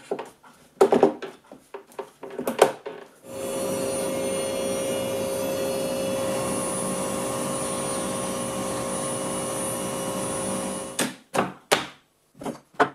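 A few short wooden knocks as the cam-lever clamps are set. About three seconds in, a CNC router spindle starts up and surfaces a wooden segmented ring with a steady whine, stopping about seven seconds later, followed by a few more short knocks.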